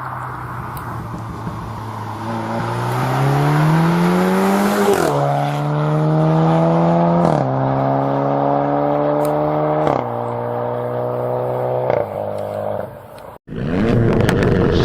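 Seat Leon Cupra ST's exhaust under hard acceleration: the engine note rises steadily, then drops sharply at each of four upshifts, climbing slowly again after each. The sound cuts off abruptly near the end and another engine run begins.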